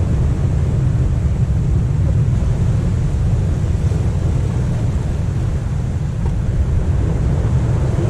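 Wind buffeting the microphone in a loud, steady low rumble, over the wash of sea waves breaking on a rocky shore.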